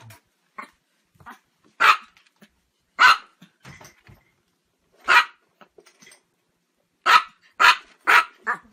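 A Chihuahua barking: sharp single yaps a second or two apart, then four quick barks in a row near the end.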